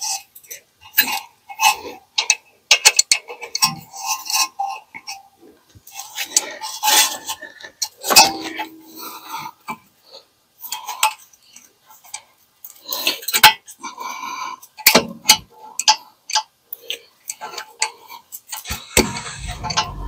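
A steel brake caliper being worked onto its mounting bracket over new pads, and its bolts started by hand. Irregular metallic clicks, clinks and short scrapes, with a dull thump near the end.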